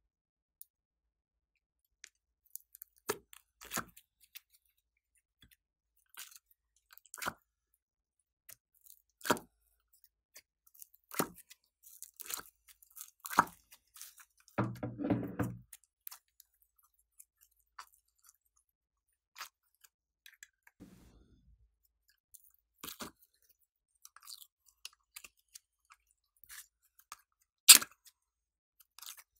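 Glossy slime pulled and squeezed out of a clear plastic tray by hand: scattered sticky clicks and pops every second or so, one longer squelch about halfway through, and a sharper click near the end.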